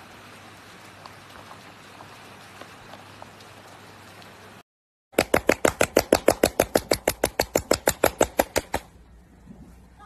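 Steady rain hiss with faint ticks, then, after a short break, a seal giving a loud, rapid series of pulses, about nine a second for nearly four seconds, which stops suddenly.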